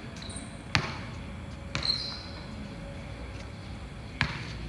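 A basketball bouncing on a hard court: three sharp bounces at uneven spacing, with a short high squeak just after the second.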